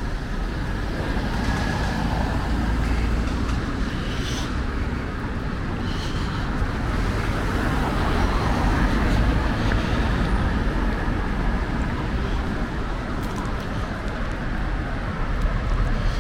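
Street traffic noise: a steady rumble of passing cars and engines that swells a little midway.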